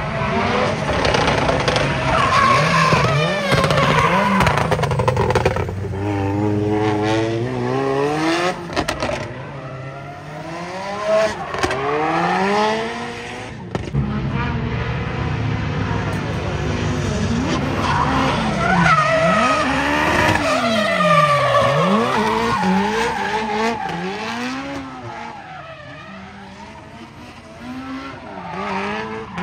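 Drift cars' engines revving hard, the pitch climbing and dropping again and again with throttle and gear changes, over the hiss of tyres skidding sideways through the corners.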